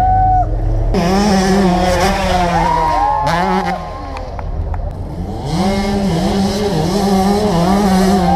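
A high-revving engine is revved hard over and over, its pitch climbing, holding near the top and dropping again several times, with a short dip in the middle.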